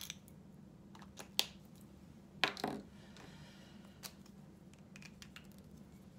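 Marker pens and their plastic caps being handled and set down on a wooden desk: a few sharp clicks and knocks, the loudest about two and a half seconds in.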